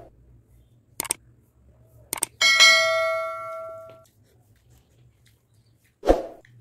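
Subscribe-button animation sound effect: two clicks, then a bell ding that rings out and fades over about a second and a half. Another short sound comes near the end.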